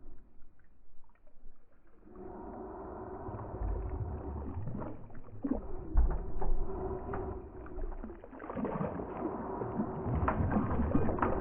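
A boat motor running steadily with a held hum, starting about two seconds in and growing louder near the end, with scattered low knocks and thumps over it.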